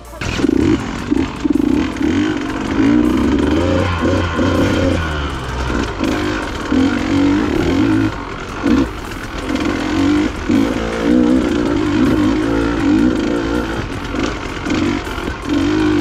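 Dirt bike engine running under load on a trail ride, its pitch rising and falling as the throttle opens and closes, with brief drops in loudness when the throttle is rolled off.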